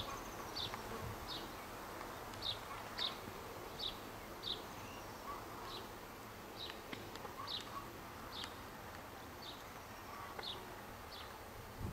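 Insect chirping outdoors: short high chirps repeating about twice a second over a faint background hiss.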